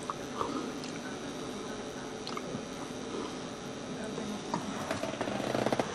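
Faint background speech in a small room, with a few light clicks and a brief rapid rattle just before the end.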